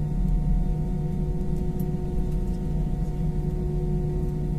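Airliner jet engines at low power heard inside the cabin while the aircraft taxis: a steady low drone with a few held humming tones over it.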